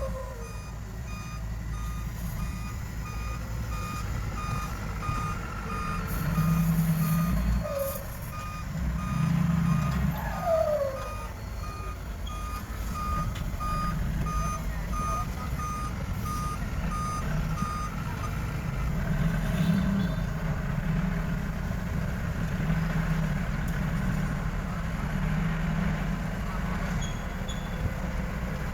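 A heavy diesel construction machine's reversing alarm beeping at an even pace over the machine's running engine. The beeping stops about two-thirds of the way through, and the engine surges louder twice.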